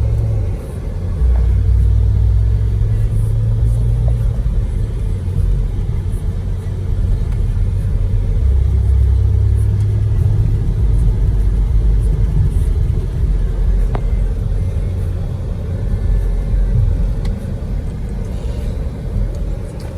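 Steady low rumble of a car, its level shifting slightly but never stopping.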